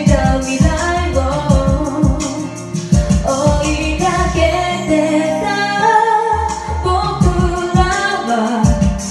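A woman sings a Japanese pop song into a karaoke microphone over a backing track with a steady drum beat and bass.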